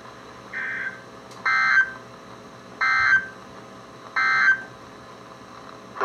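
NOAA Weather Radio EAS end-of-message data bursts (the SAME 'NNNN' code) through a weather radio receiver's speaker: a faint short burst, then three louder short bursts of data tones about 1.3 s apart, marking the end of the alert message.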